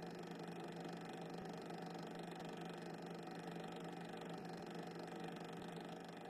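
Steady low hum with even background hiss and no distinct event: the faint noise floor of a silent cine-film transfer.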